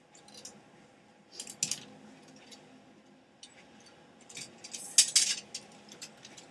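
Clothes hangers clinking and scraping along a closet rail in short, irregular bursts as garments are pushed aside, the loudest clacks about five seconds in.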